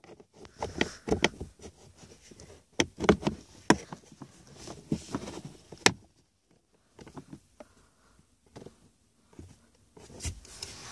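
Scattered plastic clicks, taps and rustles as the glove box of a 2015 Kia Optima is handled and refitted, with a pause of about a second just past the middle.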